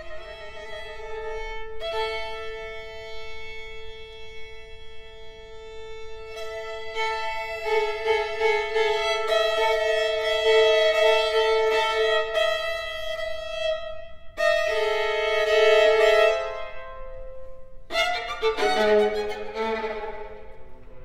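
String quartet of two violins, viola and cello playing long held bowed notes in close chords, new notes entering one after another as it grows louder. Near the end a quick flurry of busier, lower notes breaks in.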